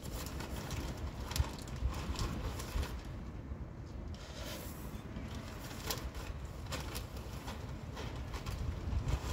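Wind rumbling on the microphone, with scattered crinkles and rustles from a plastic bag of potting mix being tipped out onto a soil pile.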